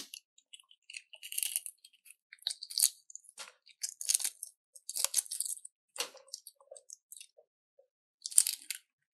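Close-miked chewing: a series of separate crisp crunches with short pauses between them as a mouthful is bitten and chewed.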